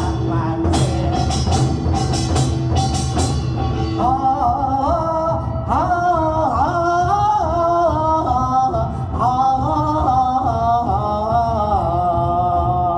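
Korean drum-troupe music: rapid drum strokes for the first few seconds, then a sung melody over a steady low beat.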